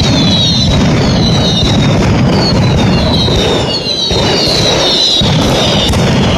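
Mascletà firecracker barrage: a dense, unbroken run of loud cracks and bangs, with many falling whistles overlapping on top.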